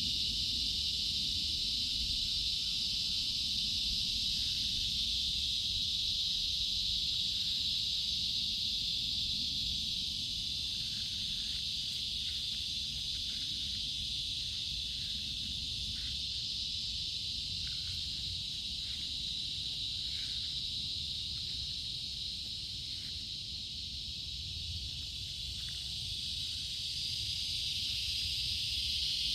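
A steady chorus of insects keeps up a continuous high-pitched shrill. A low rumble runs underneath, and faint short chirps or ticks come through now and then in the middle.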